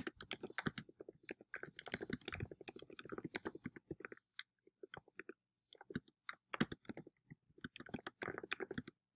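Typing on a computer keyboard: rapid runs of key clicks, thinning out for a couple of seconds midway before picking up again.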